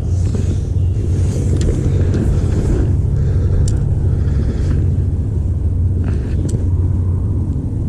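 Steady low rumble of a bass boat's motor running, with a few faint clicks on top.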